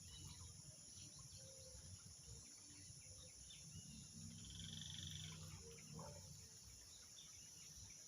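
Evening insect chorus: a steady high-pitched buzzing, faint, with one short pulsed trill call about four seconds in and a low rumble underneath.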